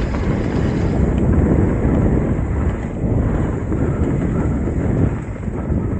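Wind rushing over the microphone with the steady rumble of a Trek Top Fuel 8 mountain bike's tyres rolling over a leaf-strewn dirt trail.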